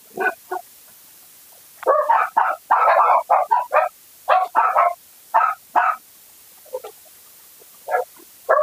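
A dog barking over and over in quick runs of short barks, most packed together about two to four seconds in. The barking is typical of a dog barking at a person out front.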